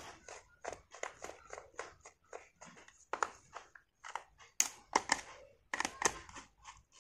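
Screwdriver driving screws into the end cap of an air-pressure horn's small vacuum motor, held in the hand: a string of quick, irregular clicks and scrapes, several a second, louder about four and a half to six seconds in.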